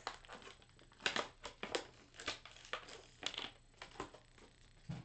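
Plastic action figures being handled on a tabletop: an irregular run of short clicks, taps and rustles as parts are picked up and moved.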